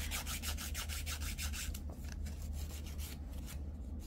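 Emery-board nail file rasping back and forth across the tip of a fingernail coated with a silk wrap and cured base gel, in quick short strokes of about five a second, with a brief pause about two seconds in.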